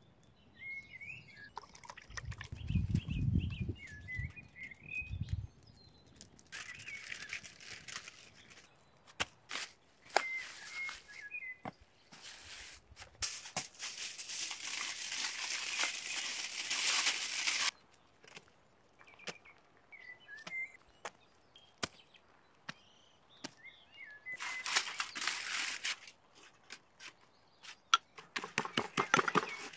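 Camp-cooking sounds: aluminium foil crinkling as food is wrapped in it, loudest for several seconds in the middle. Small birds chirp at intervals, a few low thuds come a few seconds in, and quick ticks and scrapes near the end come from a spoon working in the foil.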